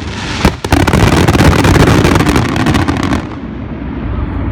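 Fireworks display: a couple of sharp bangs, then a dense barrage of rapid reports and crackling for about two seconds that stops abruptly about three seconds in, leaving a lingering rumble.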